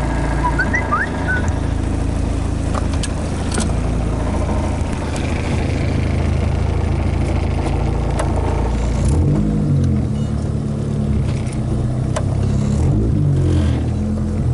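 Honda Civic engine running steadily, its pitch rising and falling briefly about two-thirds of the way in and again near the end as the gas pedal is worked, with a few light clicks.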